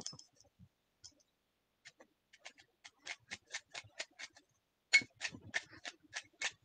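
Paper slips being stirred by hand in a bowl: a quick run of dry, crisp clicks and crinkles that thickens about halfway through and is loudest around five seconds in.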